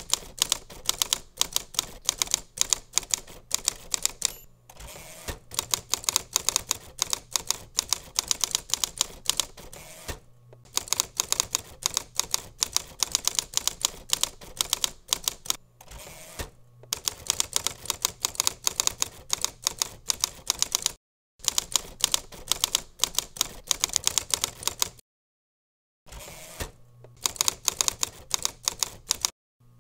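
Typewriter typing sound effect: rapid keystrokes clacking in runs that stop briefly between lines, with a silent gap of about a second near the end.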